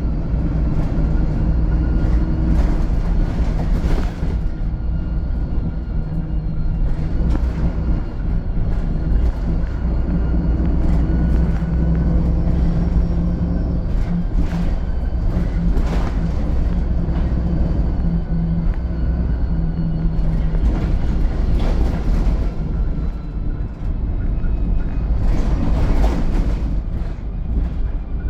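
VDL SB200 Wright Pulsar 2 single-decker bus on the move: a steady low engine drone with a thin high whine that drifts slowly in pitch, and scattered knocks and rattles.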